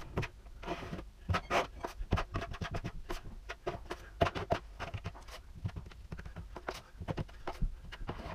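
Drywall knife scraping old joint compound out of a drywall seam, in short irregular strokes with sharp scratches and clicks.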